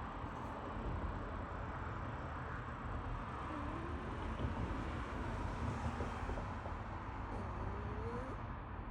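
A cat snoring, a steady low noise that runs on without clear breaks.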